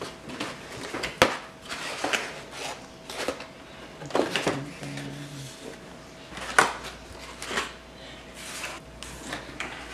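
Cardboard pizza and side-order boxes being handled and opened: lids flipped open and boxes set down on a table, with scattered knocks and paper rustles.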